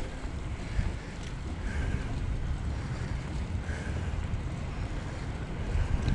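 Wind buffeting the microphone of a GoPro on a moving bicycle: a steady low rumbling noise.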